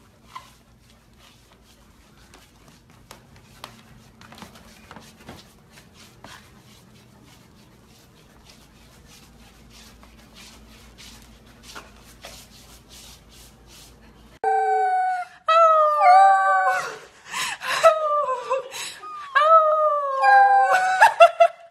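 Corgi puppy howling in long, high, wavering calls that fall in pitch, starting about two-thirds of the way in. Before that there are only faint clicks over a low hum.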